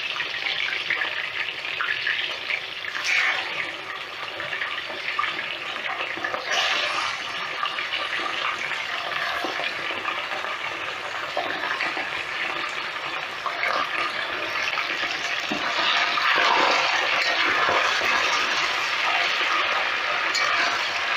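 Chunks of beef sizzling and crackling in hot oil in a cast-iron kazan as raw pieces are added and stirred in. The sizzle swells in spells and is loudest towards the end.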